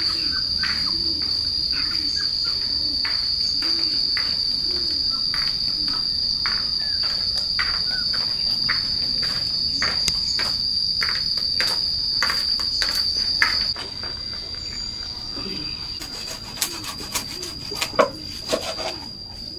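A steady, high-pitched drone of insects that drops in level about 14 seconds in. Near the end, a handful of sharp knocks from a cleaver chopping fish on a wooden chopping block, the loudest at about 18 seconds.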